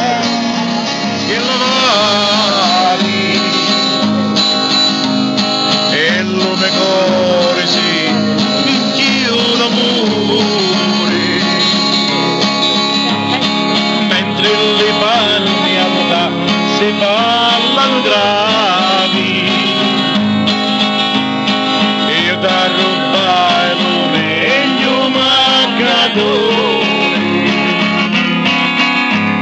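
Steel-string acoustic guitar strummed in a steady rhythm, with a melody that bends in pitch over the strumming.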